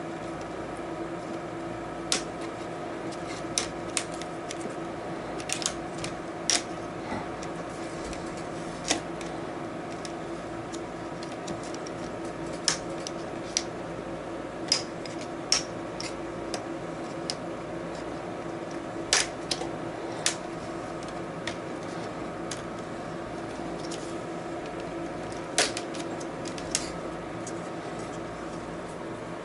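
Screen bezel of an HP Envy 15 laptop being pried off by hand: scattered sharp clicks and snaps, about twenty at irregular intervals, as its snap-in clips let go. A steady hum runs underneath.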